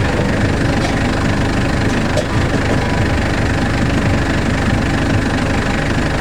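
An engine running steadily with a regular knocking beat.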